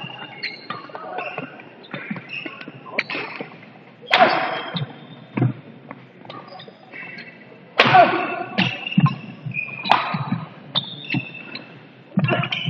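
Badminton rally: racket strikes on the shuttlecock as sharp cracks, the loudest about 4, 8 and 10 seconds in, with shoes squeaking and feet thudding on the hardwood court floor.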